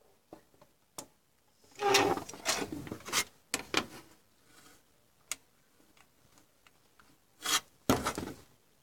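A motherboard being handled and turned over on a work surface: rubbing and scraping, with scattered light clicks and knocks. The longest stretch of scraping comes about two seconds in, and a shorter burst comes near the end.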